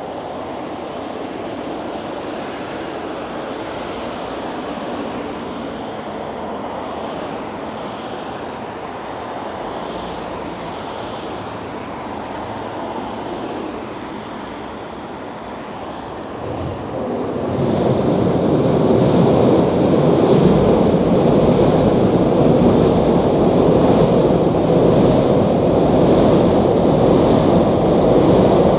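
Wind rushing over the microphone of a moving bicycle, mixed with street noise. It grows much louder about two-thirds of the way through and stays loud.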